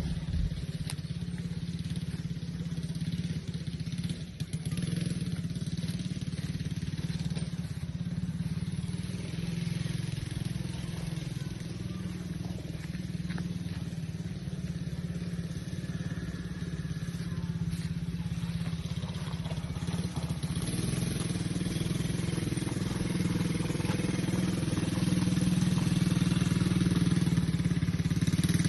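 ATV engine running steadily, growing somewhat louder over the last few seconds.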